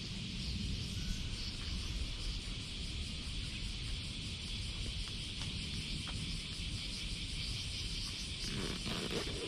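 Steady, even high-pitched insect drone, like a cicada or cricket chorus, over a low outdoor rumble, with a short scuffing noise near the end.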